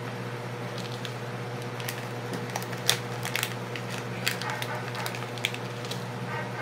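Scattered light clicks and taps of small fishing tackle being handled and set down on a desk mat, the sharpest about three seconds in, over a steady low background hum.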